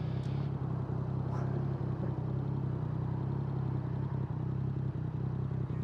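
Yamaha MT-09's three-cylinder engine running steadily, a low even engine note with no revving.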